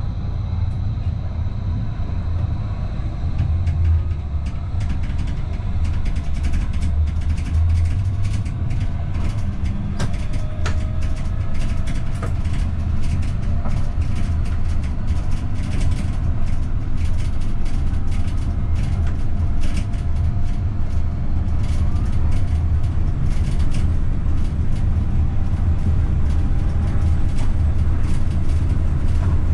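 Electric Stadtbahn light-rail train running and gathering speed, heard from the driver's cab. A steady low rumble of wheels on rail, faint rising whines from the drive as it accelerates, and many sharp clicks from the running gear.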